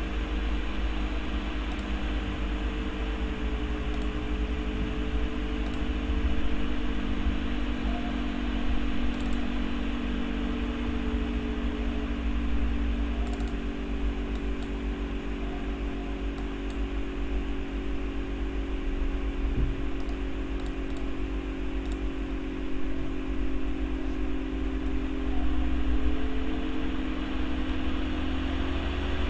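Computer cooling fan running steadily, a deep hum with a few steady tones whose pitch slowly sinks and then rises again near the end, with faint scattered ticks.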